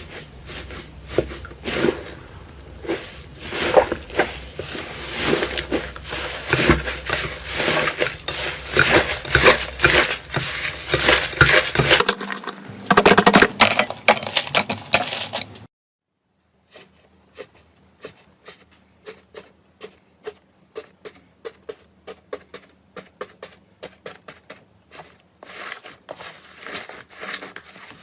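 Hands squishing and pressing slime: dense wet crackling and popping. After a brief cut, slower sticky clicks come about twice a second, growing denser again near the end.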